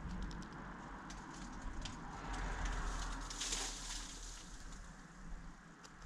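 Small, sharp clicks of a European robin's beak picking through a wooden feeder tray of grain and sunflower seeds, over a steady low rumble. A rushing hiss swells and fades in the middle and is the loudest sound.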